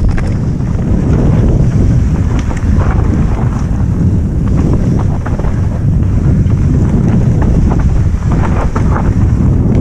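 Orbea Rallon mountain bike running fast down a loose dirt trail: heavy wind buffeting the helmet-mounted microphone over steady tyre rumble, with frequent clicks and rattles from the bike over roots and stones.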